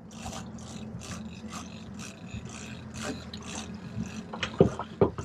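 Saltwater fishing reel being cranked, a rhythmic whir about two turns a second as a hooked mahi-mahi is reeled up to the boat, over the steady low hum of the boat's engine. Two sharp knocks near the end.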